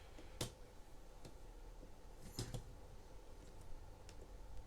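Small plastic Lego Technic pieces clicking and knocking as a part is handled and pressed onto pins: a sharp click about half a second in, then a quick pair of clicks around the middle, all quiet.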